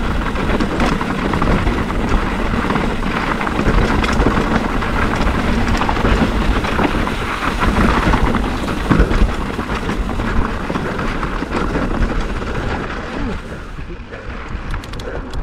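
Mountain bike riding fast over a rough, rocky dirt trail: tyres crunching over gravel and the bike rattling and clattering over stones, with a low rumble on the bike-mounted microphone. The noise eases near the end as the bike rolls onto smooth pavement.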